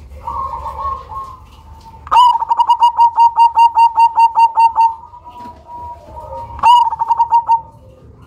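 Zebra dove (perkutut, black cemani variety) singing. A soft coo comes first, then about two seconds in a loud run of about a dozen quick, evenly spaced notes. Near the end comes a shorter run of about six.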